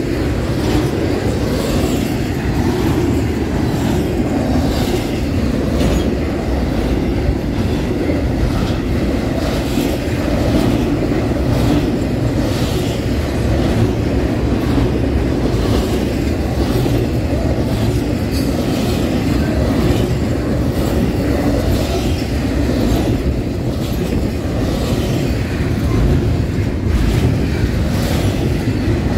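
A train running past on the rails: a steady rumble of wheels on track with a repeated clickety-clack as the wheels cross rail joints.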